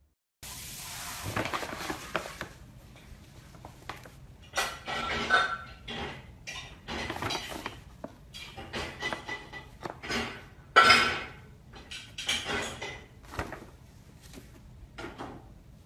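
Brown paper shopping bag rustling and crinkling in irregular bursts as a kitten shifts around inside it and a finger pokes at it. The loudest crinkle comes about eleven seconds in.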